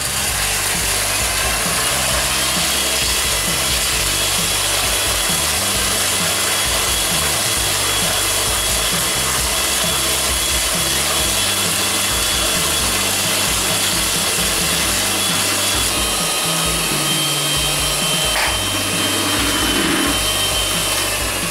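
Electric hand mixer running steadily at speed, its beaters whisking eggs and sugar in a plastic bowl, with a thin motor whine that rises slightly about two seconds in and then holds. The batter is being beaten until it turns pale and thick for a sponge cake.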